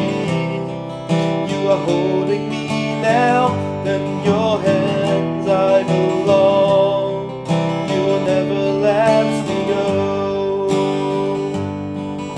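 Taylor 910 steel-string acoustic guitar strummed and picked through a slow chord passage, with a man's voice singing along in long, wavering held notes.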